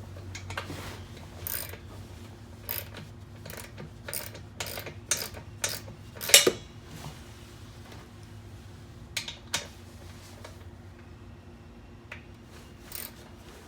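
A series of sharp clicks and knocks, about a dozen spread irregularly, the loudest a little past halfway, like tools or small hard parts being handled in a workshop, over a steady low hum.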